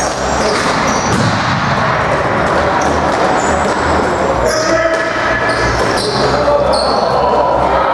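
Box lacrosse play in an arena hall: knocks of sticks and ball on the floor and boards, short sneaker squeaks, and players shouting, the loudest shout about five to six seconds in.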